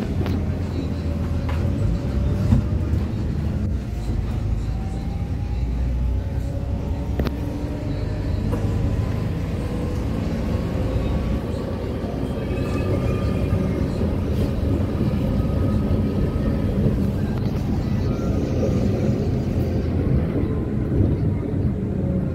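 Cabin noise inside a Caio Mondego II articulated bus on a Volvo B8RLEA diesel chassis while it drives: a steady low rumble of engine and road. A faint whine rises slowly in pitch through the middle.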